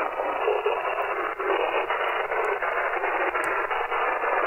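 Receiver static from a WebSDR software-defined radio tuned to the 27 MHz CB band in upper sideband. It is a steady hiss squeezed into a narrow voice-width band, with a few faint clicks from impulse noise on the band.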